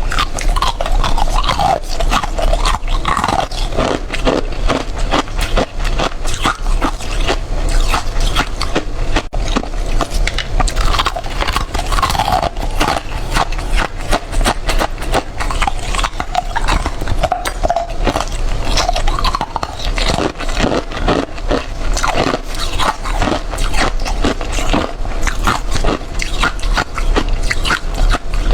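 Close-miked crunching and chewing of freezer frost: rapid, continuous crisp crunches of powdery ice being bitten and chewed.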